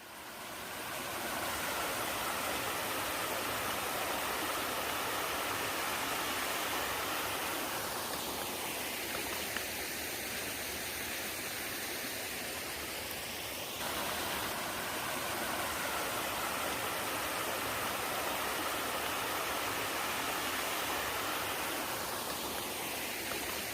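Mountain valley stream flowing: a steady wash of water that fades in at the start and changes abruptly about fourteen seconds in.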